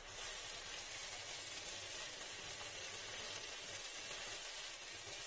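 A thick bottle-gourd, rice and fish-head ghonto sizzling steadily in a pan on the heat, a dense even hiss.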